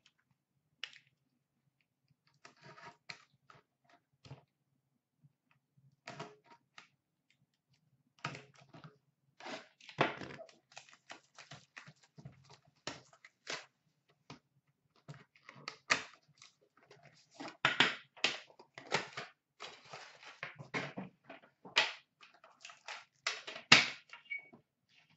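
A cardboard trading-card box being handled and opened by hand: irregular taps, scrapes and rustles of cardboard and packaging. They are sparse at first and grow busier and louder through the second half.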